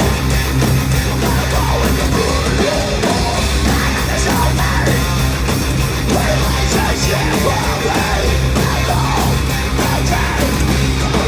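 Heavy metal band playing live, with distorted electric guitars, bass and drums. The playing is loud and steady, with a driving drum beat and sustained low bass notes.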